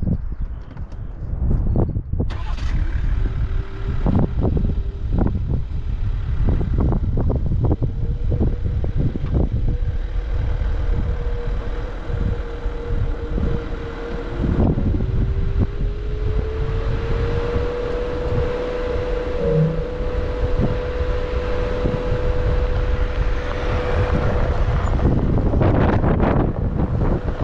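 Off-road vehicle driving over a gravel track, with low rumble and wind buffeting the outside-mounted microphone. Knocks and crunches from the tyres come through the first half. A whining drivetrain tone rises in pitch about halfway through, then holds steady.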